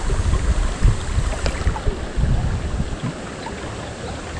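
River water rushing steadily, with uneven low rumbles of wind on the microphone that ease off about three seconds in.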